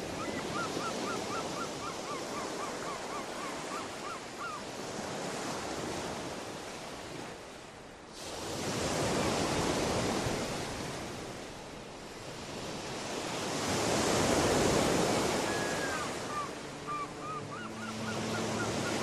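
Ocean waves washing onto a shore in a steady rush of surf, with two big swells, about halfway through and again later on. Birds give strings of short, quick calls at the start and again near the end.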